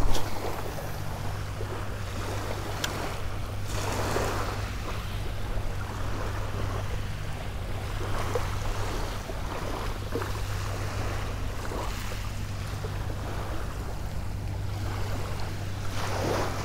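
Small waves washing up on a sand-and-shell beach, swelling every few seconds, with wind on the microphone and a steady low hum underneath.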